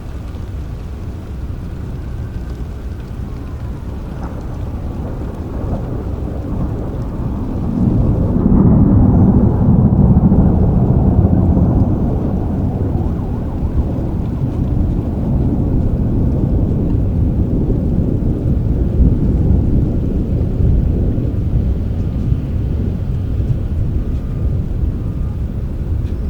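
Rolling thunder over steady rain: a deep rumble that swells about eight seconds in, then slowly dies away.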